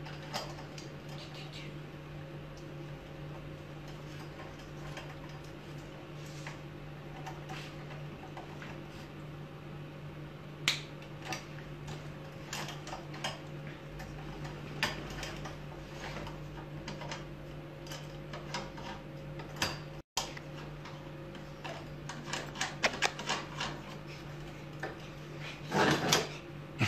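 Light clicks and taps of a small dog being tethered to a grooming arm and handled on a grooming table, over a steady low hum. A short rustling burst comes near the end.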